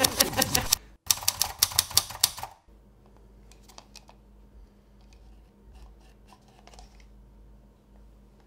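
Rapid typewriter key clacks, about five or six a second with a short break about a second in, stop after two and a half seconds. Then only faint rustles and light clicks of a plastic gadget being handled.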